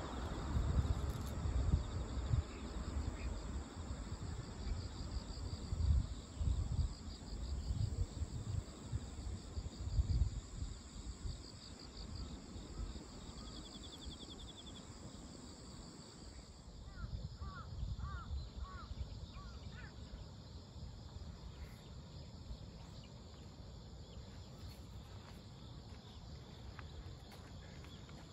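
Insects chirping in a steady, pulsing high trill, with irregular low rumbling bumps on the microphone through the first half. A little past the middle comes a brief run of short rising chirps.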